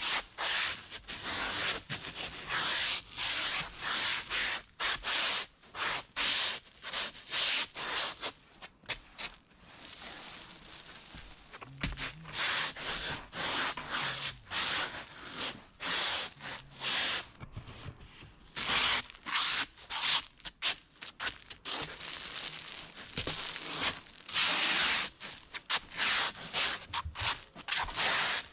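Stiff brush spreading bitumen roof mastic on rough mineral-surfaced roofing felt: quick rasping strokes in runs, with a few short pauses.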